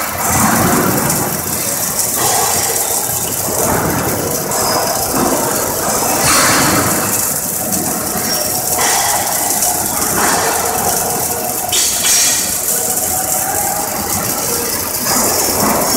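Two Yaskawa robotic arc-welding torches welding at once, their arcs sputtering with a steady, noisy crackle.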